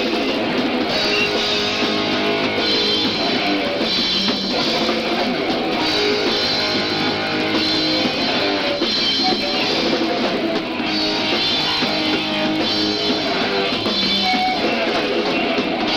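Live rock band playing loud: electric guitar and a drum kit.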